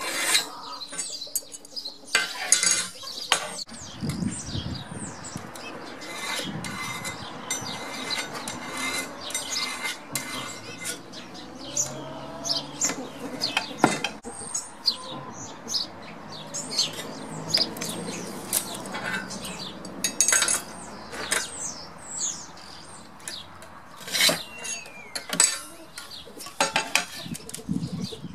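Metal tools clinking and scraping on steel plate as lines are scribed with a steel scriber along a metal straightedge, in many short irregular clicks. Birds chirp throughout.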